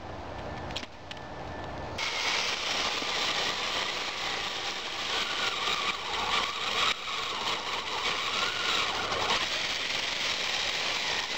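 Black & Decker 18-volt NiCd battery chainsaw with an 8-inch bar cutting into a small log. The motor and chain start about two seconds in and then run steadily, with a brief dip near the middle. The battery is running down, so power has dropped and the saw cuts slowly and jams easily.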